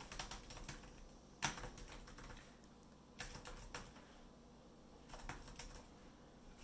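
Faint typing on a laptop keyboard, in four short bursts of key clicks with pauses between.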